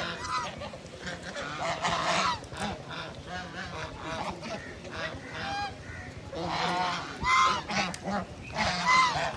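Domestic white geese honking, a run of repeated calls that overlap, the loudest about seven and nine seconds in.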